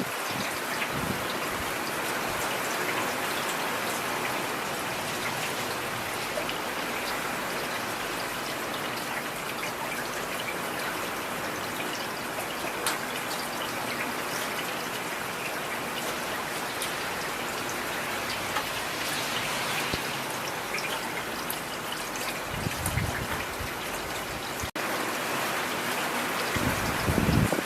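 Heavy rain falling steadily, a dense even hiss of drops. Low rumbles of distant thunder swell up twice near the end, with a momentary dropout in between.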